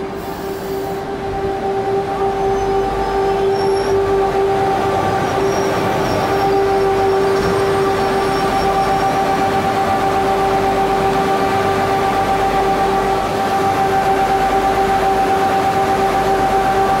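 WCAM-3 electric locomotive starting up, its blower motors running up into a loud, steady whine over a mechanical hum. The whine grows louder over the first three seconds, then holds steady.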